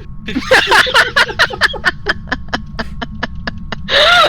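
A person laughing hard in rapid, breathy bursts that trail off over a few seconds, then a loud breathy vocal burst near the end.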